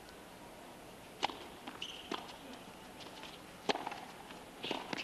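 Tennis rally: sharp pops of a racket striking the ball, a serve about a second in, the return and further shots, the loudest hit near the four-second mark and two quick ones near the end, over a quiet crowd hush.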